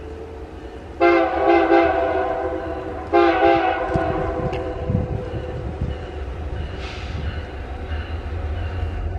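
Diesel locomotive horn on an EMD SD70 leading an empty ore train, sounding a chord of several notes in two blasts: a long one of about two seconds, then a shorter one right after. The deep rumble of the passing locomotives' diesel engines continues underneath.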